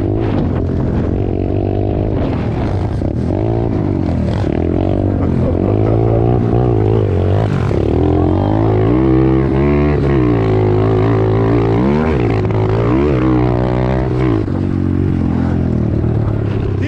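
Several pit bike engines revving up and down, their pitches rising and falling over one another, over a steady low engine drone.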